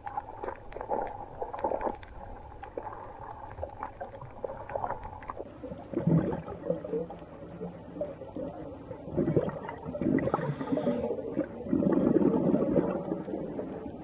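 Underwater ambience: scattered sharp clicks and snaps in the first few seconds, then low bubbling and rumbling surges of water noise, loudest a couple of seconds before the end.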